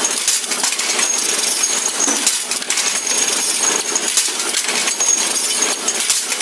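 Automatic metalworking machine running, with continuous dense metallic clinking and rattling of small ring-shaped steel parts being fed and worked. A faint high whine comes and goes over the clatter.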